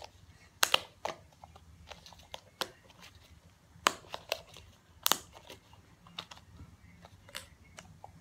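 Small plastic tub of scented modelling dough being opened by hand: irregular sharp plastic clicks and crinkles as the lid is worked off, loudest about a second in, about four seconds in and about five seconds in.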